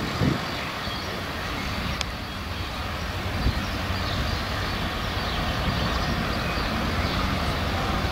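Diesel engine of a DB Class V65 locomotive running under load as it hauls a train of coaches at low speed, a steady low rumble that grows slowly louder as it approaches.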